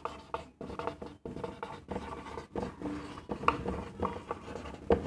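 Dry-erase marker squeaking and scratching on a whiteboard in a quick run of short strokes as a word is written.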